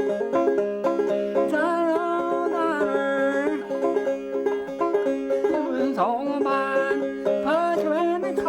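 Five-string banjo playing an old-time mountain tune, with steady drone notes ringing under the shifting melody.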